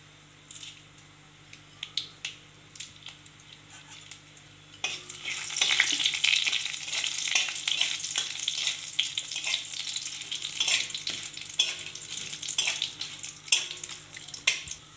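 Bay leaves, dried red chilli and panch phoron tempering in hot oil in a kadai: faint scattered crackles at first, then about five seconds in a loud, dense sizzle full of popping crackles as a metal spatula stirs the spices.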